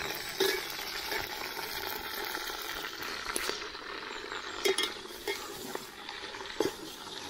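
Onions frying in hot ghee and oil with a steady sizzle, and a ladle stirring and scraping against the pan a few times.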